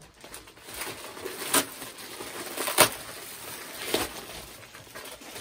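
Tattoo machine packaging being opened and handled: low rustling with three sharp clicks about one and a half, three and four seconds in, the middle one the loudest.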